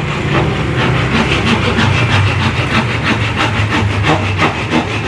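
Hand saw cutting wood in quick, even strokes, about three a second, over a steady low hum.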